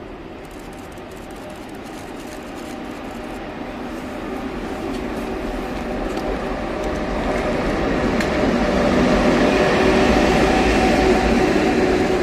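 EF81 electric locomotive hauling a rake of E130 diesel railcars, approaching and drawing in alongside, growing steadily louder with a steady hum and wheel-on-rail noise.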